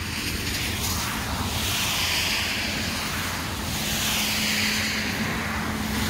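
Rushing noise of a passing vehicle that swells at the start and stays up, with a low steady hum beneath it.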